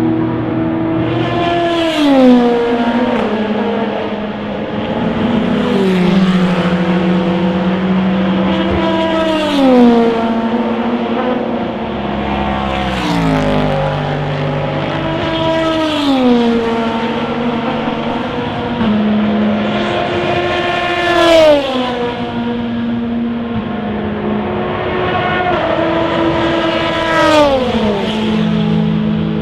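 Endurance racing cars going past at speed, one after another. Each engine note drops sharply in pitch as the car passes, about seven passes in all, with other engines running steadily between them.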